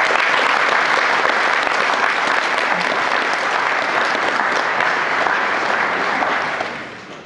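An audience applauding, a dense, steady clapping that dies away near the end.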